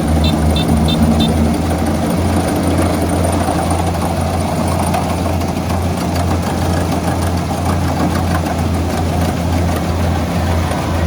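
Heavy engine running steadily at constant speed, a low, even hum. A quick run of short high beeps sounds in the first second.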